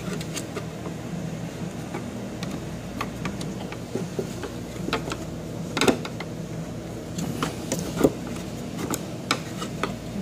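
Plastic tool-holder segment of a CNC tool-changer carousel being pushed and worked by hand into the carousel's interlocks: scattered clicks and knocks, the sharpest about six seconds in and again near eight. A steady low hum runs underneath.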